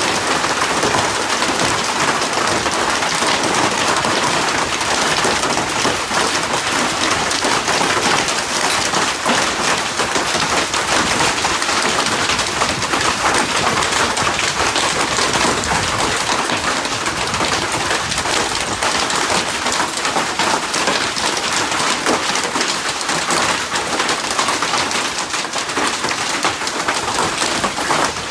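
Heavy rain falling steadily in a hailstorm, a dense, even patter of many small impacts on a surface.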